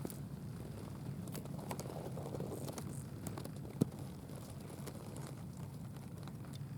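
Grasshopper stridulating: irregular short, dry clicks and ticking bursts, with one sharper click about four seconds in, over a steady low hum.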